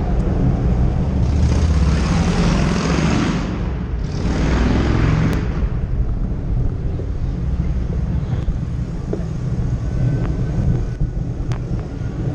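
Wind buffeting a bicycle-mounted action camera's microphone while riding, over a heavy low rumble from the road. Two surges of hissing noise come in the first five seconds. A few sharp ticks follow later as the bike rolls onto cobblestones.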